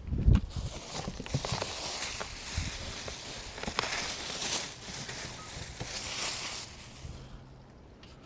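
A pry tool working the center cap out of an alloy wheel: a thump just after the start, then scraping, sharp plastic clicks and rustling of handling that die down near the end.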